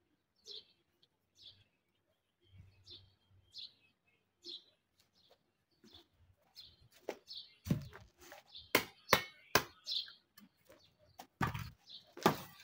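A small bird chirps repeatedly, with short high chirps about once a second. From about halfway through, a run of loud knocks and thuds comes as a green coconut and a machete are set down and handled on a wooden chopping stump.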